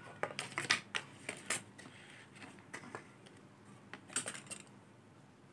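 Handling noise: scattered light clicks, taps and rattles of small hard objects being moved about on a desk, a cluster in the first second and another about four seconds in.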